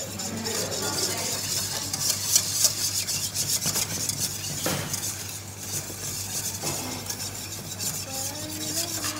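Wire balloon whisk beating a thin milky liquid in a stainless steel bowl: a fast, continuous scraping and clinking of the wires against the metal, with light sloshing.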